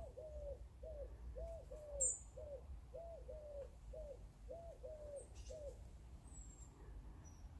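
A wood pigeon cooing: phrases of low, soft coos that stop about six seconds in. A small bird gives a brief high chirp about two seconds in.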